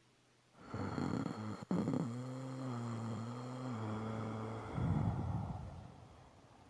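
A person snoring: one long snore that starts about half a second in with a rough rattle, settles into a low droning tone for about two and a half seconds, then ends in a breathy rasp that fades out.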